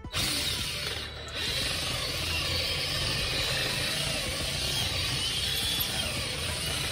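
Power drill boring a hole through metal, running steadily with a slightly wavering pitch after a brief pause about a second in.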